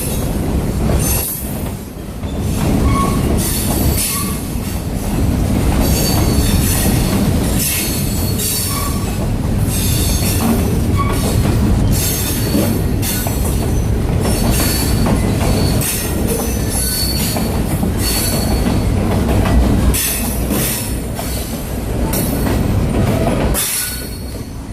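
Train running past, its wheels rumbling steadily and clacking over the rail joints again and again, with some wheel squeal.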